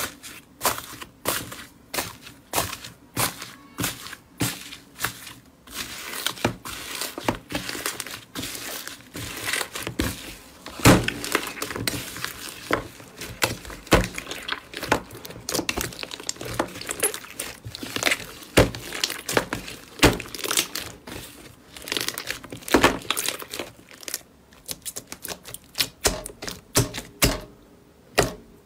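Slime, partly filled with foam beads, being pressed and squeezed by hand: a fast, irregular run of crackling clicks and pops, denser through the middle.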